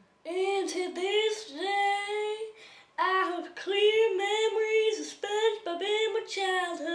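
A woman singing solo and unaccompanied in a high voice, in short held phrases with brief pauses between them.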